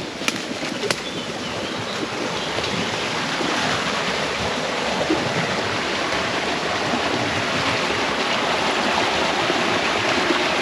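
Rushing water of a small mountain stream tumbling over rocks at a little waterfall: a steady, dense hiss that grows louder over the first few seconds and then holds. Two sharp clicks sound near the start.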